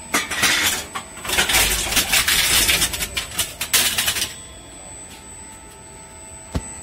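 Reverse vending machine's compactor crushing a plastic bottle: a dense crackling crunch for about four seconds with a low rumble under it. The noise then drops away, and a single sharp click comes near the end.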